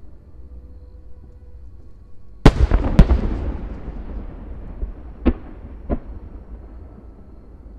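Aerial firework shells bursting: two loud bangs about half a second apart, followed by a fading rumble and crackle, then two fainter bangs a couple of seconds later.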